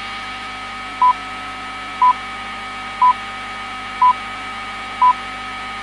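BBC Greenwich Time Signal: five short, evenly spaced pips one second apart, counting down to the long pip that marks the hour. Under them runs a steady hiss of radio static with faint humming tones.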